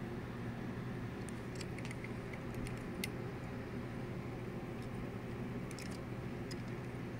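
Steady low hum with a few faint, light clicks and ticks of handling, bunched in two clusters, from small die-cast metal toy cars and the camera being moved about by hand.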